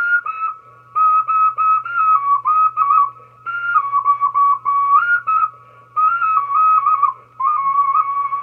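Handmade clay tube flute being played: a breathy, high melody of short notes stepping up and down, in brief phrases separated by short breaths.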